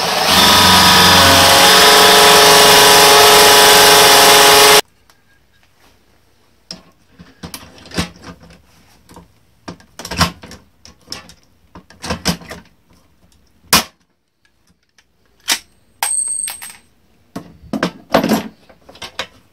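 Cordless drill running at full speed for about five seconds as it bores through an aluminum fan shroud, then cuts off. After that come the clicks and knocks of a hand pop-rivet tool being worked, with a few sharp metallic snaps as rivets are set.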